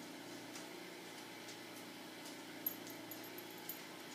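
Quiet room with a steady low hum and a few faint, light clicks and taps, the sharpest about two and a half seconds in.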